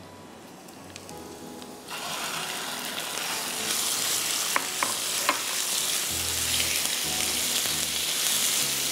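Raw chicken breast strips dropped into hot oil and fried garlic in a non-stick frying pan, starting to sizzle suddenly about two seconds in. The sizzle then carries on steadily while the strips are stirred with a silicone spatula, with a few light clicks.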